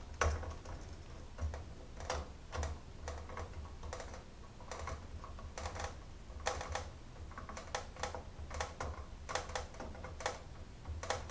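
Irregular light clicks and ticks, about one or two a second, as a Torx driver turns and is re-gripped on a CPU heatsink's retaining screw while tightening it down to snug.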